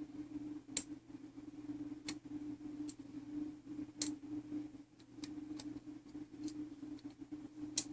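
Irregular light metallic clicks, about eight over several seconds, from small tools and brass parts being handled while a clock movement is reassembled, over a steady electrical hum.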